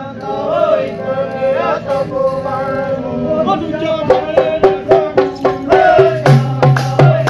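Punjabi folk music: a voice holds a wavering melody at first. From about four seconds in, sharp rhythmic percussion strikes come in, and a few seconds later a dholak's low beat joins them.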